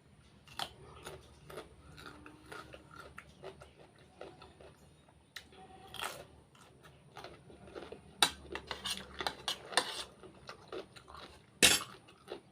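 Someone eating: chewing, with scattered clinks and scrapes of cutlery on a plate, the sharpest clink near the end.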